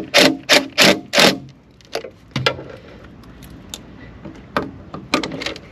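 A series of sharp clicks and light metallic rattles as a cordless impact driver with a Phillips tip is fitted onto a galvanized screw in a PVC conduit strap. Several come in quick succession in the first second or so, then a few scattered ones.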